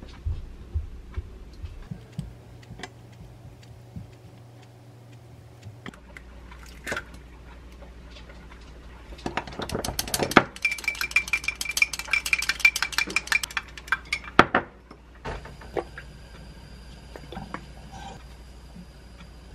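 A kitchen knife tapping and cutting through a slice of bread on a wooden cutting board. Then, about halfway through, wooden chopsticks beat an egg in a glass cup: rapid clinking for about five seconds, the loudest part. After that there is a faint steady hiss.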